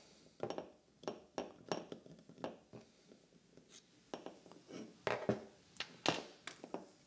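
Scattered light clicks and taps of small metal parts as the Allen-head grip screws are taken out of a Kimber 1911 frame and the hex driver and grip panels are handled and set down on the bench.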